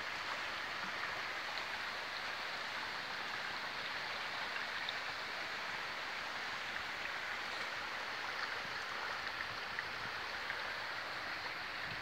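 A swollen river in flood, its steady rush of flowing water.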